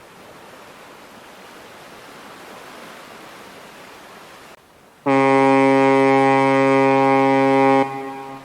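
Waves washing on the shore, then about five seconds in a loud horn sounds one steady blast of nearly three seconds, cutting off and fading out.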